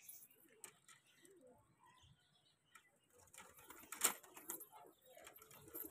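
Domestic pigeons cooing softly in a coop, with a sharp click and a short rattle about four seconds in as the coop's wooden, wire-mesh door is worked open.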